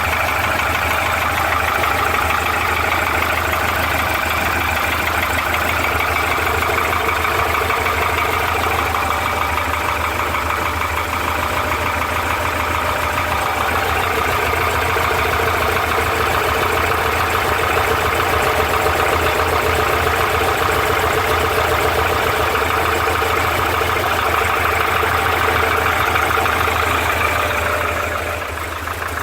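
Porsche 912's air-cooled flat-four engine idling steadily with a rapid knock running through it, which the owner takes for piston slap. The level dips briefly near the end.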